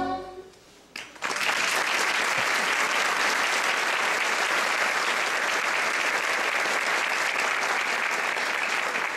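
A sung chord dies away, and after about a second's hush a theatre audience breaks into applause. The applause stays dense and steady.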